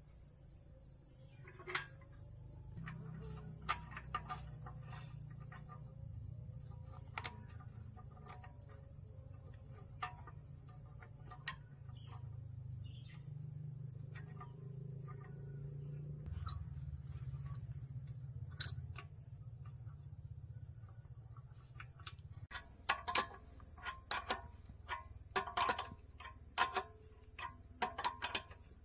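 Steady high insect chirring under a low hum, with scattered sharp clicks and taps that come thick and fast in the last quarter, where the hum drops away.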